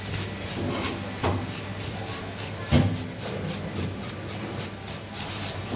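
Scales being scraped off a trevally with a hand scaler: quick, rasping strokes against the fish, about three or four a second. One louder knock comes a little before the halfway point.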